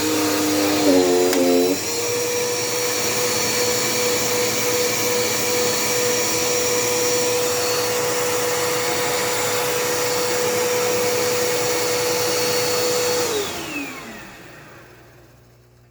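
Dirt Devil Power Max vacuum cleaner running with a steady motor whine, its pitch wavering briefly about a second in. Near the end it is switched off, and the whine falls in pitch as the motor spins down.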